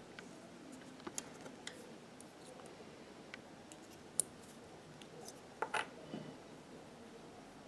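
Light metallic clicks and ticks from the steel tension discs of an industrial sewing machine as they are handled and turned in the fingers. One sharper click comes about four seconds in, and a short cluster of clicks just before six seconds.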